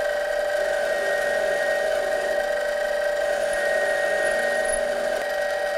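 Harbor Freight 7x10 mini lathe, driven by a three-phase brushless DC motor, running at a steady speed: a constant whine of several tones from the motor and gear train. The cutting tool is being fed toward the spinning rod.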